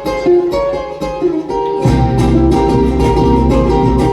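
Played-back Latin dance music: a picked plucked-string melody opens the song, and bass and the full band come in about two seconds in.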